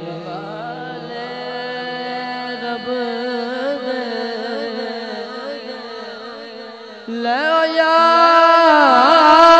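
A man singing a Punjabi Sufi kalam in long, drawn-out, wavering melismatic lines. The voice comes in much louder about seven seconds in.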